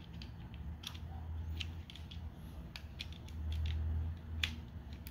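Hard plastic parts of a Transformers Legacy United Sandstorm figure clicking and ticking as its roll cage piece is handled and pressed into a slot, a few separate sharp clicks over a low background hum.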